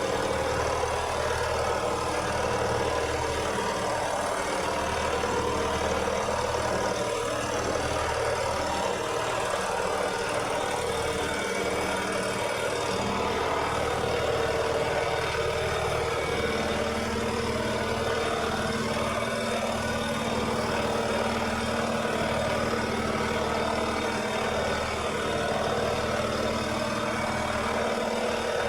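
Lawnmower engine running steadily, its blades spinning. About sixteen seconds in, a new steady tone joins the hum.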